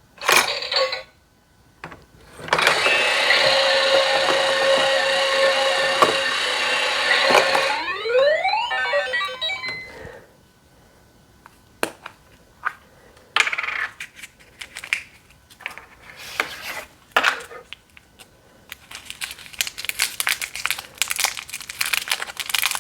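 Toy capsule machine playing an electronic jingle from its small speaker for about five seconds, ending in a rising sweep effect. Then come scattered clicks and rattles of plastic capsules and the toy being handled, growing busier near the end.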